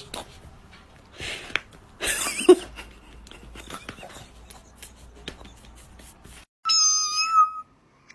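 Cat sounds: two short noisy bursts in the first few seconds, then, after an abrupt cut, a loud high-pitched meow lasting under a second near the end.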